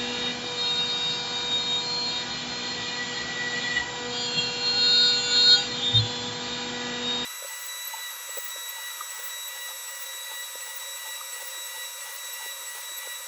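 CNC router spindle running with a steady whine while the bit cuts the stock. About seven seconds in the sound changes abruptly to a thinner whine with faint ticks, the low end gone.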